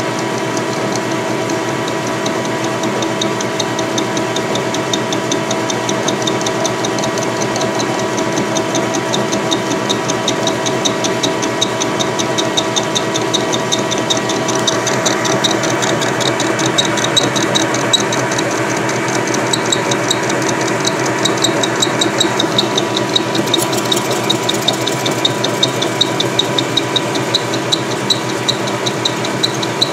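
Metal lathe turning down a welded steel bush hog shaft on a slow power feed: a steady machine hum with a fast, regular ticking from the cut that grows stronger about halfway through.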